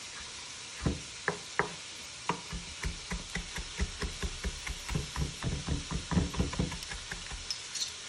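Chef's knife chopping parsley on a wooden cutting board: a run of irregular knocks of the blade hitting the wood, starting about a second in and quickening to about four a second, over a faint steady sizzle of food frying in a pan.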